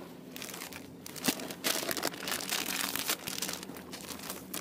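Plastic groundbait packets crinkling and rustling as they are handled and opened, with one sharp click about a second in.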